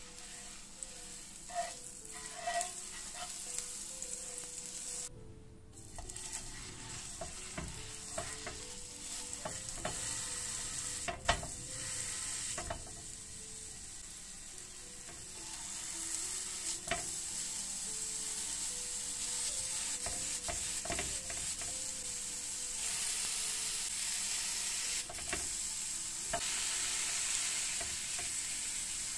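Butter and then minced-beef patties sizzling on a hot coated griddle pan, the sizzle growing louder in the second half as the meat goes on. Occasional knocks and scrapes of utensils on the pan, the sharpest about a third of the way in.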